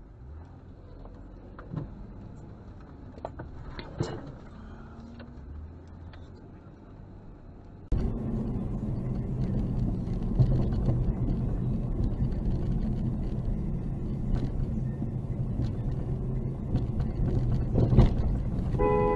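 Engine and road noise inside a moving car, picked up by the dash camera: faint at first with a few light clicks, then much louder and steady from about eight seconds in, with one sharp knock near the end.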